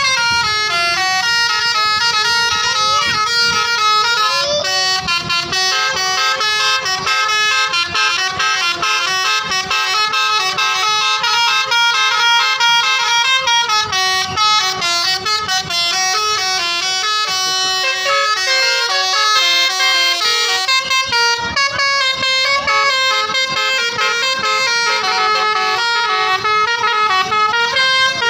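Indonesian tour bus 'telolet' multi-tone horn playing a tune: several horn pitches sound together and step quickly from note to note, with a few short sliding notes near the start.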